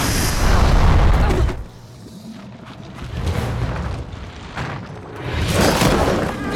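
Designed film sound effects of a dragon's fire blast: a loud burst with a deep rumble in the first second and a half, then a second loud surge about five and a half seconds in, with film music underneath.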